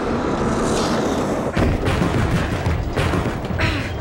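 Action-film soundtrack: a string of loud bangs and impacts over music.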